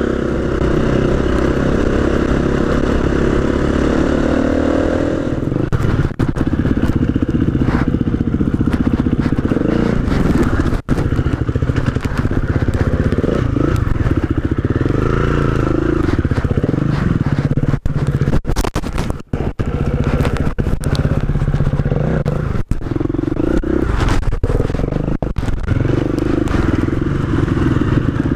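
KTM enduro trail bike engine running close up, its note rising and falling as the throttle is opened and shut over rough ground, with a few brief knocks and dropouts.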